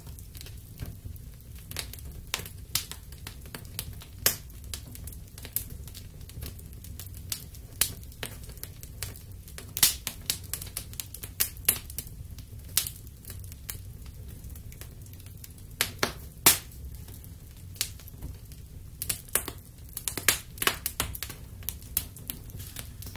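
Wood fire crackling in a fireplace: irregular sharp pops and snaps, several of them loud, over a steady low rumble of the flames.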